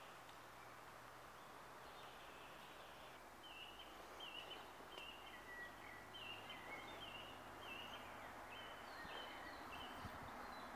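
A small songbird calling: a run of short high chirps, about one every half second, starting about a third of the way in and stopping shortly before the end. Behind them is a faint steady hiss.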